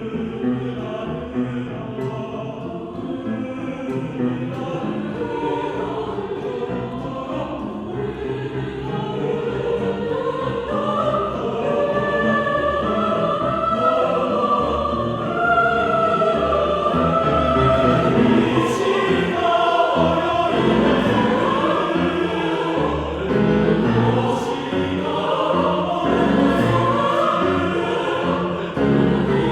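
Mixed choir singing with piano accompaniment, many voices in shifting harmony, growing louder through the first half and staying full.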